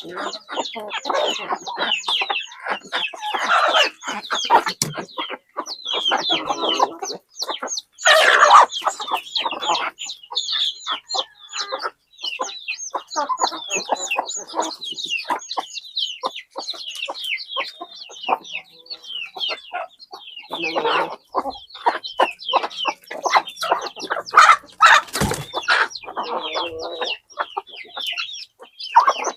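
Chickens clucking and calling continuously, many short calls overlapping, with louder clusters about eight seconds in and near the end.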